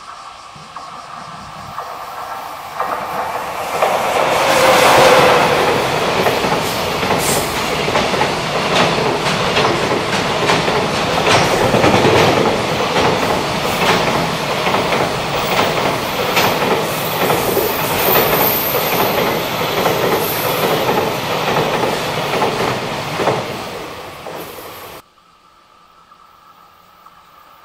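A JR Freight EF66 electric locomotive and its long train of container wagons passing close by. The sound builds as it approaches, then holds as a steady loud rumble with a rapid clickety-clack of wheels over rail joints as the wagons roll past. It cuts off suddenly near the end.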